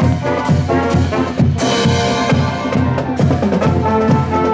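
Marching band playing on the march: saxophones, clarinets and sousaphone over a steady drum beat, with a cymbal crash about one and a half seconds in.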